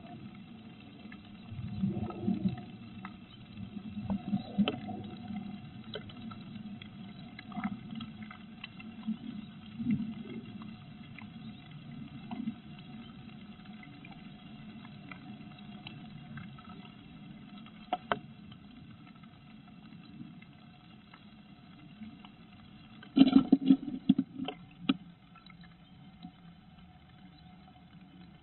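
Eastern bluebird moving about inside a wooden nest box: soft rustling of the grass nest and scattered knocks and scratches against the box, with a louder flurry of scratches and knocks near the end as she climbs up off the eggs.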